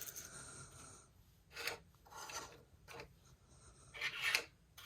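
A few short rubbing, scraping strokes of handling noise, with the strongest one near the end.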